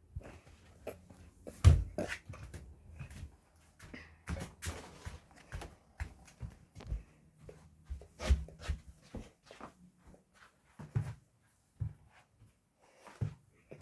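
Hoover Vision HD washing machine in an unbalanced spin, with irregular knocks and thuds over a low hum. The loudest thumps come about two seconds in and a little past the middle. The knocking is the sign of a badly unbalanced load.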